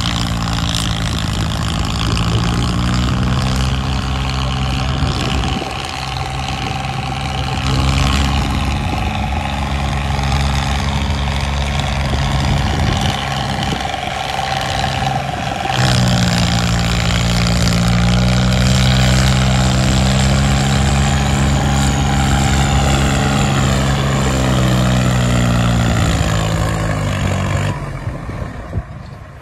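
Swaraj 855 tractor's three-cylinder diesel engine running under load as it hauls a heavily loaded trolley, its engine speed rising and falling a few times. The sound drops away abruptly near the end.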